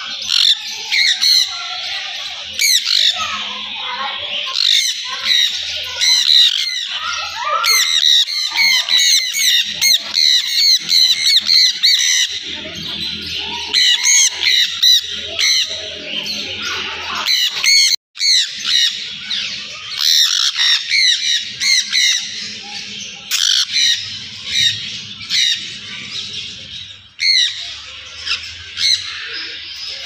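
A flock of caged sun conures calling continuously: many short, high-pitched calls overlapping in a dense chorus, with a brief break about halfway through.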